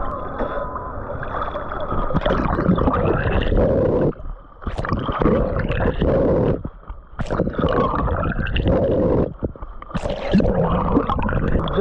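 Sea water splashing and gurgling around a swimmer's strokes close to the microphone, with a few sharp splashes and three brief quieter gaps.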